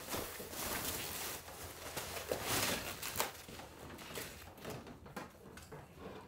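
Clear plastic sheeting rustling and crinkling as it is pulled down from a doorway and handled, in uneven bursts that die down after about four seconds.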